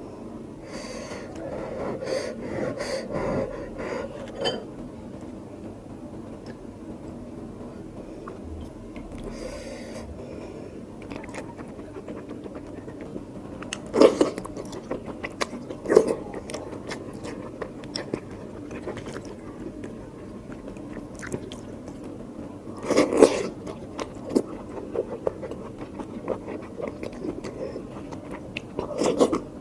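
Close-miked chewing of mutton curry and rice, wet mouth sounds running on steadily, with a few sharp, louder bites or smacks now and then.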